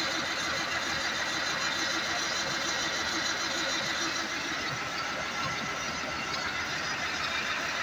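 Komatsu heavy-equipment diesel engine running steadily, heard close up at the open engine bay.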